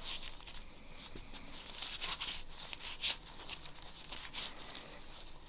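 Irregular rustling and light crisp clicks from hands handling the cleaned pistols and cleaning materials on a work surface.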